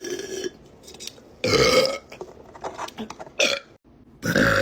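A person burping: a loud burp about a second and a half in, a short one a couple of seconds later, then a long, drawn-out burp starting near the end.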